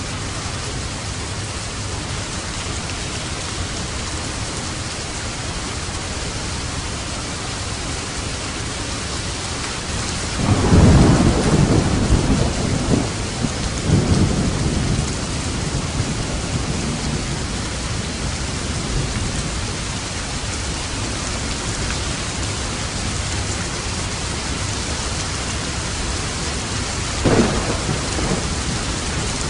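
Steady heavy rain falling, with a rumble of thunder about a third of the way in that rolls on for several seconds, and a short sharp thunderclap near the end.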